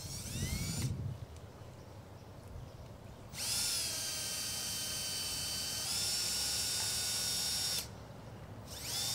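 Cordless drill driving the screw of a worm-drive radiator clamp, run in bursts: a short spin-up with the pitch bending at the start, a steady whine for about four seconds that steps up slightly in pitch partway through, and another run starting near the end.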